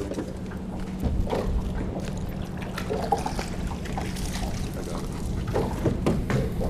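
Water lapping and splashing around a small fishing boat, over a steady low hum, with scattered knocks from gear being handled on the deck.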